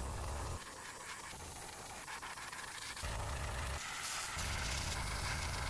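Airbrush spraying paint: a steady hiss of air and paint mist, with a low hum underneath that drops out twice.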